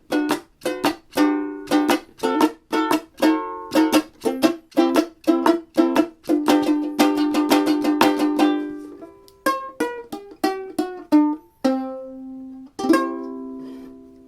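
Home-built cigar box ukulele with a paint can lid resonator, played as a blues: quick, even strummed chords, then slowing to ringing chords and single plucked notes, with a last chord struck near the end.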